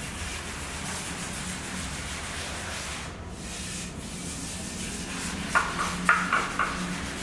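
Steady rubbing or scraping noise over a low hum, with a few short, sharp squeaks near the end.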